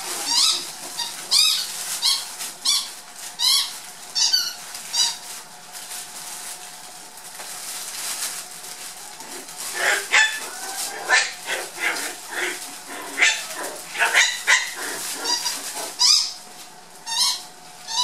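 Black dwarf poodle puppies yipping and squeaking in short, high-pitched calls while they scramble through a rustling fabric play tunnel. The yips come thick in the first few seconds, ease off, then pick up again with scratchy rustling from about halfway.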